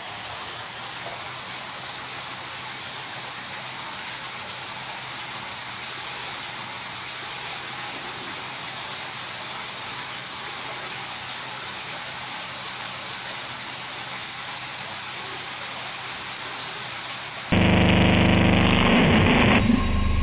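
Steady hiss-like noise, then about seventeen seconds in a sudden, much louder distorted drone with deep humming tones.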